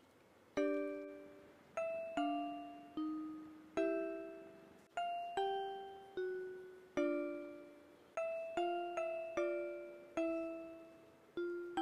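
Gentle background music: a slow melody of plucked or struck notes, often two at a time, each ringing out and fading before the next.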